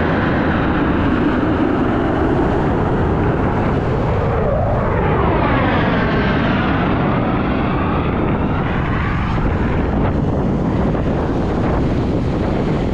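Jet engines of a formation of military fighter jets flying past, a loud continuous rushing noise. About halfway through, a sweeping, phasing tone passes through it as the jets go by overhead.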